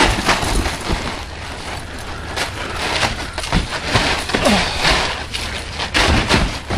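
Scuffling and repeated thuds of wrestlers grappling and landing on a tarp-covered backyard wrestling ring, over a constant rushing noise.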